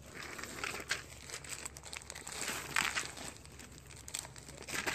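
Plastic bags of dried beans crinkling as a hand handles them, in irregular rustling bursts, with the loudest burst a little under three seconds in.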